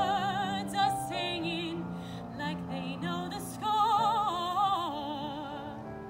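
A woman singing in an operatic style with wide vibrato, climbing to a loud held high note about four seconds in, then stepping down to lower notes and ending near the end.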